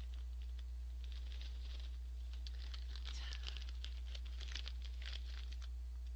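A plastic snack bag of Orion Gorae-bap fish-shaped crackers crinkling, with irregular small crackles as the crackers are shaken out into a hand. A steady low hum runs underneath.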